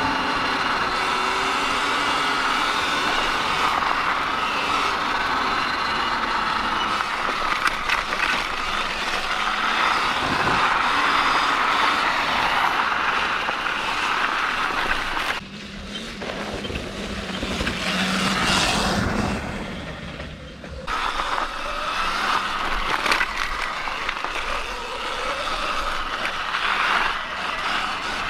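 Sur-Ron X electric dirt bike being ridden along a dirt trail: a changing electric motor whine with chain and tyre noise and wind over the mic. It drops quieter for several seconds around the middle.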